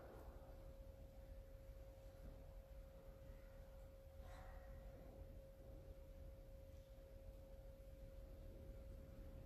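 Near silence: faint room tone with a steady, unchanging high hum, and one brief soft noise about four seconds in.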